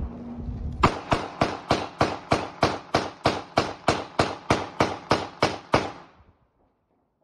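A gun fired rapidly in a steady run of about seventeen shots, about three a second, starting about a second in and stopping a little before six seconds. This is celebratory gunfire at midnight on New Year's Eve.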